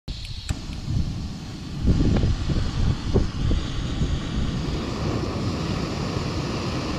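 Wind buffeting the microphone in gusts, over the steady hiss of a lit gas canister stove burner heating a pot.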